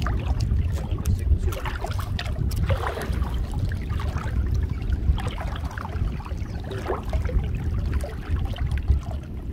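Water sloshing and splashing as a person wades through waist-deep water, over a steady low rumble of wind on the microphone.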